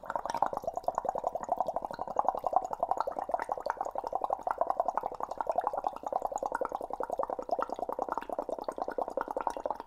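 Breath blown through a drinking straw into a beaker of water-based indicator solution, bubbling rapidly and without a break, stopping near the end.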